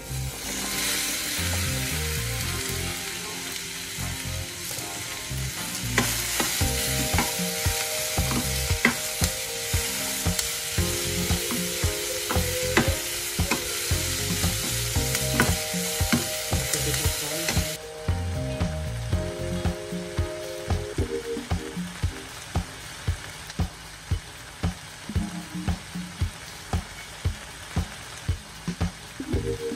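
Chopped onion, cucumber and carrot sizzling loudly in a hot oiled frying pan as they are tipped in and stirred with a spatula. About two-thirds of the way through the loud sizzle drops off sharply, leaving quieter frying with regular stirring strokes.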